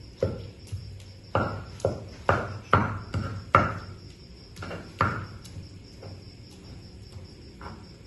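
Pestle knocking and grinding sambal of chili, tomato and shallot in a flat mortar (cobek): a run of sharp knocks with a short ring, about two a second, strongest from about a second and a half in to about five seconds, then softer.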